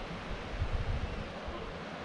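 Wind gusting on the microphone in irregular low rumbles over a steady wash of ocean surf.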